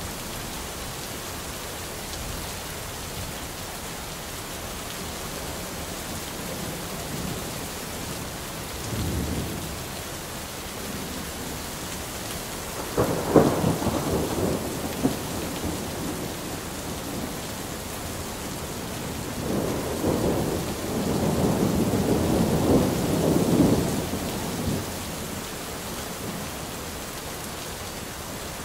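Steady rain with thunder: a brief low rumble, then a sharp crack of thunder about halfway that crackles on for a couple of seconds, and a longer rolling rumble later on.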